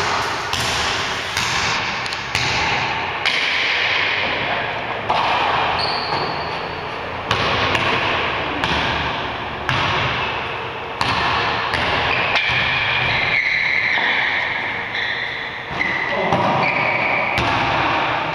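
Basketball bouncing and thudding on a hardwood gym floor during play: irregular, sharp impacts that echo through a large, hard-walled gym.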